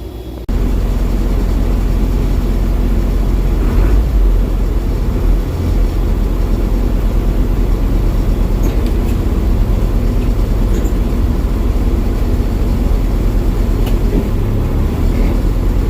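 Trawler's diesel engine running loud and steady, a deep rumble, close by. It is being run to check that the port engine, which seemed to lose propulsion, still drives the boat.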